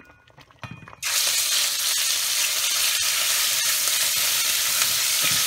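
Ground meat going into hot olive oil and sizzling loudly as it starts to fry, stirred with a wooden spoon. The sizzle starts suddenly about a second in and then holds steady.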